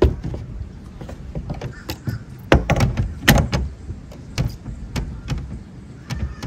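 Hard knocks and clatter from MaxxAir fan mounting parts being handled and fitted on the van roof. There is a sharp knock at the start, a cluster of louder knocks about two and a half to three and a half seconds in, and lighter taps after that.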